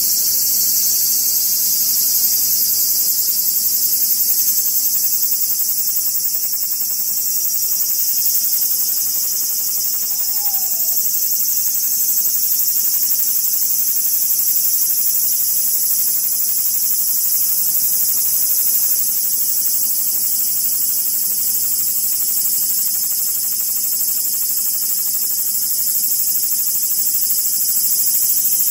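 Steady, high-pitched insect chorus, a continuous hiss-like din without a break. A brief faint falling note sounds about ten seconds in.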